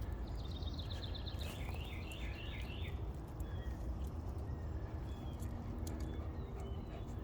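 A songbird sings one short phrase: a quick run of high repeated notes, then a lower wavering run. A steady low outdoor rumble sits underneath, with a few faint clicks.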